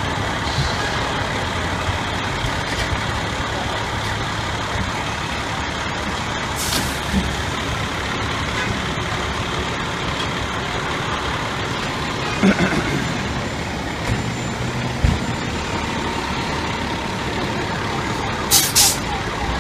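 Fire department tower ladder truck's engine running as the rig pulls away, with short hisses of its air brakes about a third of the way in and twice near the end.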